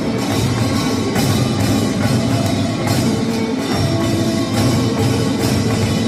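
Korean pungmul percussion band playing: drums and gongs beaten together in a driving rhythm, with held ringing tones from the gongs.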